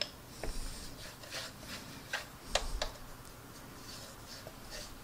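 Light scratchy rubbing of a paintbrush working panel-line wash over a plastic model kit, with a few small clicks and taps from handling the model and bottle. The sharpest click comes about two and a half seconds in.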